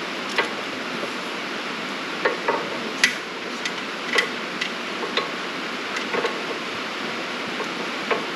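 Scattered light metallic clicks and clinks from the hooks and ratchet of ratchet straps being handled and untangled. Under them runs a steady hiss, typical of hard rain on a roof.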